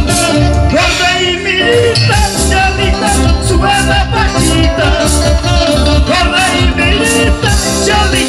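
A live band playing: a drum kit with cymbals keeps the beat under a heavy bass and a bending melody line.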